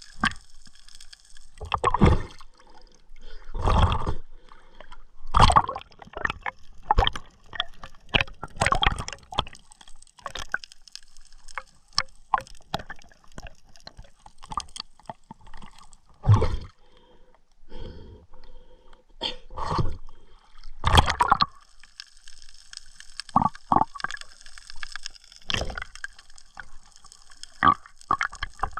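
Water gurgling and sloshing close around a camera held in the water, with irregular louder surges and many scattered sharp clicks.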